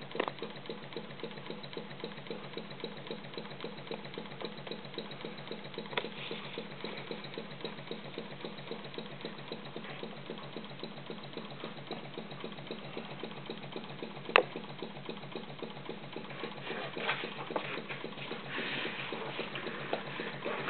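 Model single-cylinder vertical steam engine built from castings running steadily, its exhaust and motion beating in an even, quick rhythm. A single sharp click stands out about two-thirds of the way through, and the sound grows a little busier and louder near the end.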